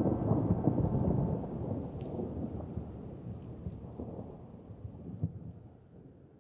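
Rolling thunder: a low rumble with a few sharp crackles, fading steadily away to nothing.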